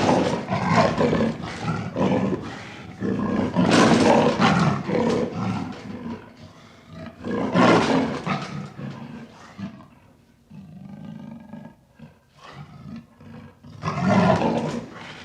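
Panther roaring and growling. Loud roars come in the first eight seconds, then a quieter stretch of lower growls, then another loud roar near the end.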